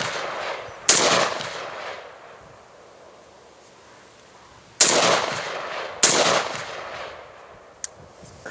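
SIG Sauer P556 pistol firing 5.56 mm rifle rounds: three shots, one about a second in, one about five seconds in and another a second after that, each followed by a long echo that dies away.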